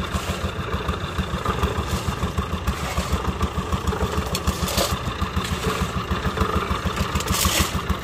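An engine running steadily with a fast, even low chugging. Two brief clatters cut through it, one about five seconds in and a louder one near the end.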